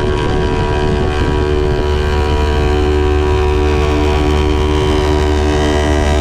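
A 250 cc parallel-twin sport motorcycle running at a steady cruise, its engine note holding an even pitch, with wind rumbling over the microphone.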